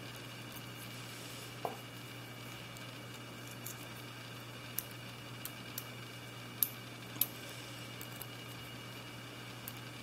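A lock pick and tension wrench working inside a six-pin Soviet padlock: a scattering of small sharp clicks and ticks as the pick moves the pins, the loudest two a little past the middle, over a steady low hum.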